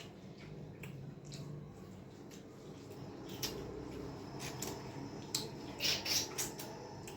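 Eating sounds: chewing with short wet mouth smacks and clicks, a few louder smacks in the second half.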